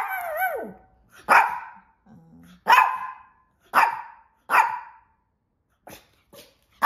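A small dog barking: a falling yelp at the start, then about five short, sharp single barks roughly a second apart. The owner takes the barking as the dog asking to go out for a walk.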